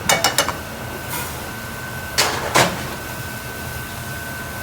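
Kitchen clatter: a quick run of clicks and knocks, then two louder crashes a little after two seconds, over a steady high whine from kitchen equipment.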